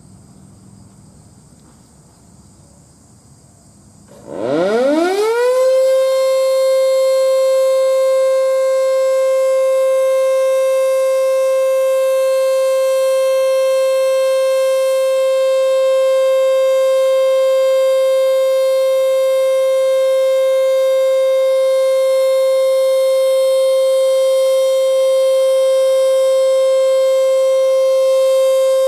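ACA Screamer S-2 outdoor warning siren winding up about four seconds in, its pitch rising quickly to one steady, loud tone. It holds that tone as the steady alert signal of a routine test.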